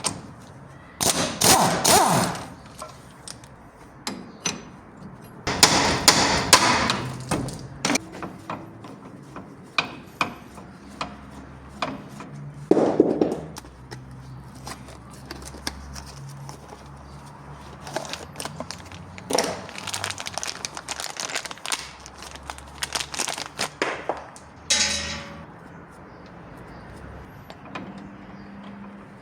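Tool work on a light truck's steering tie rod end: repeated metal clanks and knocks, with several louder clattering bursts a second or two long.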